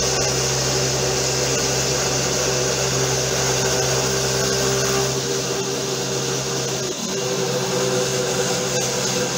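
Homemade CNC router milling plywood: its 775 DC spindle motor runs a 2.5 mm three-flute cutter through the sheet with a steady whine over the cutting noise. The lower hum drops away about halfway through as the gantry moves on along the cut.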